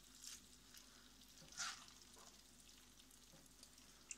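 Faint scraping of a spatula scooping baked sliced potatoes out of a pan, with a louder scrape about one and a half seconds in and a small click near the end.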